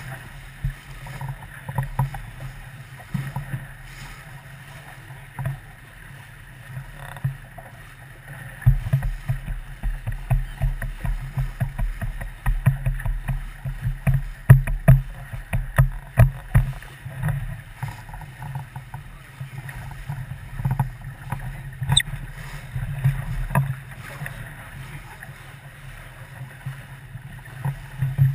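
Sailboat under way: water and hull noise with irregular knocks and surges, busiest for several seconds starting about nine seconds in.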